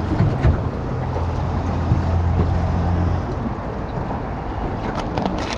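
An engine running with a steady low hum over a background hiss, louder between about one and three seconds in.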